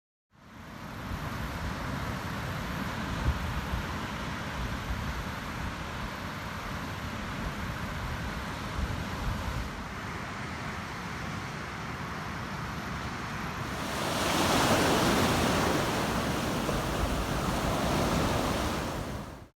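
Strong wind buffeting the microphone over ocean surf on a beach, as an even rushing noise with a low rumble. About fourteen seconds in, the noise swells louder and brighter and stays up.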